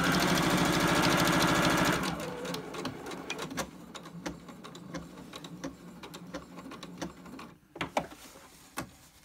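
Electric domestic sewing machine stitching at speed for about two seconds, a fast even needle rhythm, then stopping. After that come softer scattered clicks, with a few sharper ones near the end.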